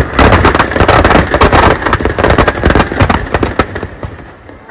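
Firecrackers packed inside a burning Ravan effigy going off in a rapid, dense string of bangs. The bangs thin out and fade toward the end.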